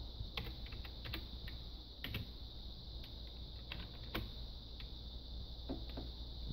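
Keys being typed on an eMachines computer keyboard: about a dozen irregular clicks, some in quick pairs, over a steady high hiss.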